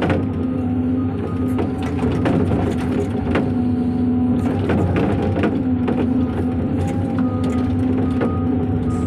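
Heavy construction machinery's diesel engine running steadily, with scattered knocks and clanks. An intermittent beeping tone comes in during the second half, like a reversing alarm.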